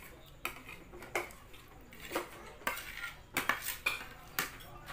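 Metal spoons clinking and scraping on plastic plates as food is eaten, about eight sharp, irregular clicks.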